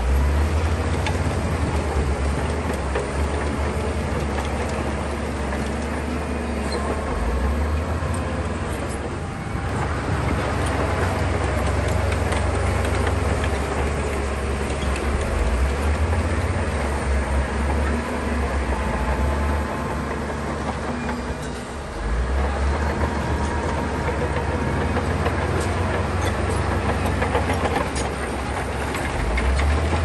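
Heavy earthmoving machinery at work: diesel engines running with a deep, steady rumble and a continuous metallic clatter, easing off briefly about two-thirds of the way in.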